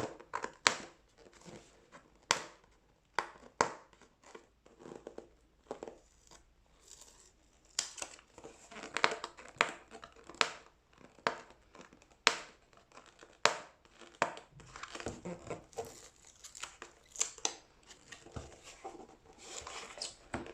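A smartphone box being opened: packaging crinkling and tearing, with scattered sharp clicks and taps throughout.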